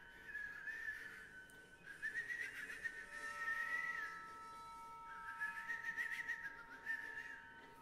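Free-improvised acoustic music: a high, breathy, wavering whistle-like tone in three phrases, over soft, steady held tones.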